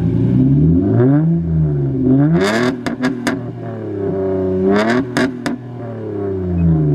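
Turbocharged car engine with an aftermarket downpipe exhaust being revved repeatedly, the revs climbing and falling several times, with a few short sharp sounds as the throttle closes.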